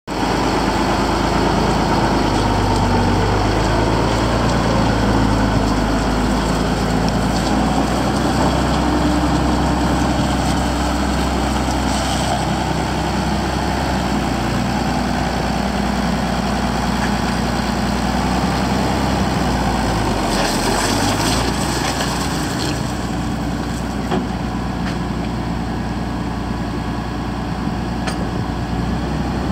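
Volvo BM T810 tractor's diesel engine running steadily at idle, then driving off and getting a little fainter near the end.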